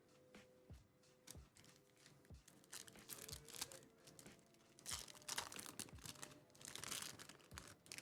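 Foil or plastic trading-card pack wrappers and cards crinkling and rustling as they are handled, in several short bursts, the strongest about five seconds in and again near seven seconds.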